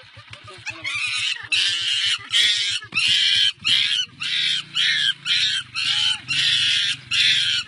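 A young primate screaming in repeated shrill shrieks, about two a second, starting about a second in. Under the cries a motorcycle engine idles.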